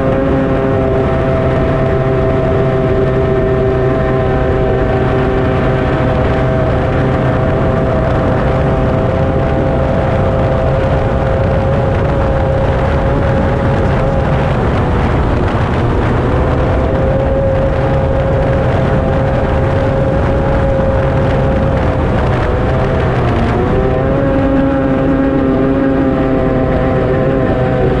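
Two-stroke racing outboard on a B Stock hydroplane running flat out, a loud steady drone over water and wind noise. Its pitch sags and recovers about halfway through and again near the end.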